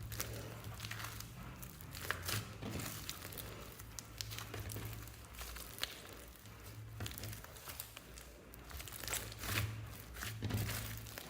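Slime being squished and stretched by hand, giving irregular crackling and crinkling pops.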